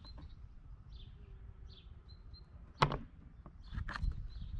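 A sharp knock nearly three seconds in and a few softer knocks near the end, over a low rumble with faint bird chirps.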